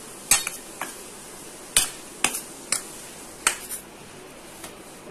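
Metal spoon clinking and scraping against a stainless steel plate while stirring a dry, crumbly coconut and sesame filling, with several sharp clinks at irregular intervals.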